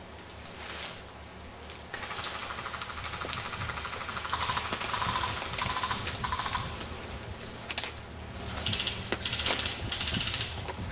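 Airsoft electric guns firing rapid full-auto bursts: a fast, even rattle of clicks that starts about two seconds in and keeps going, with a few sharper single cracks later.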